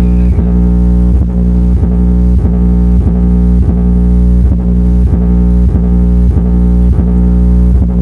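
Loud dance music played through a large sonidero sound system, dominated by a deep, held bass with a steady beat a little under twice a second.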